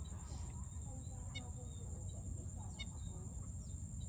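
Steady high-pitched insect chorus of crickets, pulsing without a break. A short chirp repeats about every second and a half, over a constant low rumble.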